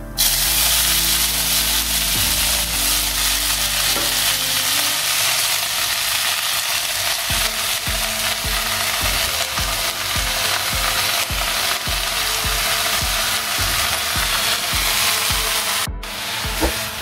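Chopped fresh fenugreek leaves dropped into hot ghee with carom seeds in an iron pan, sizzling loudly as they fry. The hiss starts suddenly as the leaves hit the fat.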